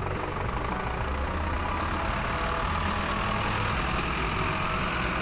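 Truck engine sound effect running steadily, with a low, even drone.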